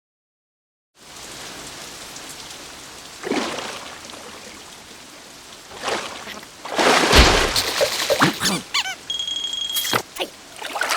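Cartoon soundtrack without dialogue. After a second of silence a steady, rain-like hiss starts, and from about halfway through comes a run of louder sound effects and short squeaky, gliding character noises, with a brief steady high-pitched tone near the end.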